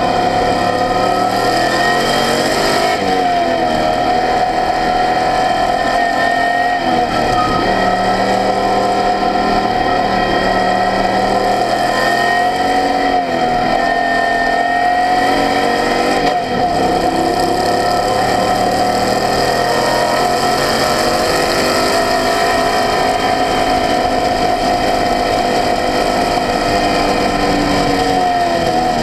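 Race car engine heard on board at speed on a track, its pitch climbing under acceleration and dropping sharply several times as the driver lifts, brakes and shifts.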